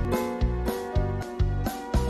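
Instrumental background music with a steady beat, about three beats a second, under sustained pitched notes.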